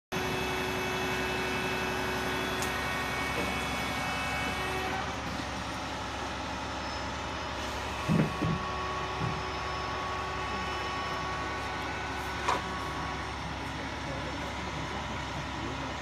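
Truck-mounted crane's engine running steadily, driving the hydraulics during a lift. A sharp double knock comes about eight seconds in and a single knock about four seconds later.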